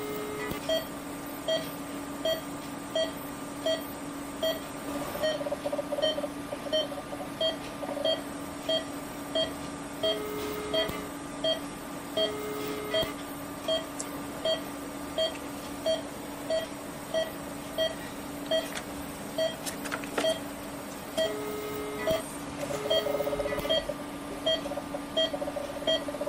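Patient monitor beeping in an even pulse, a little faster than one beep a second, over a steady hum. A few times a lower held tone of about a second sounds: the activation tone of the ERBE argon plasma coagulation unit as the probe fires.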